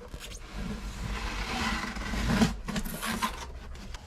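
Cardboard box and packaging being handled as the box is opened: a scraping, rustling noise that builds to a knock about two and a half seconds in, followed by a few short knocks.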